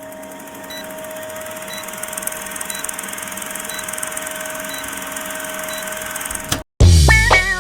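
Electric commuter train running, its noise slowly building, with a steady hum and a faint high pip about once a second. Near the end it cuts off suddenly and music with guitar and drums starts.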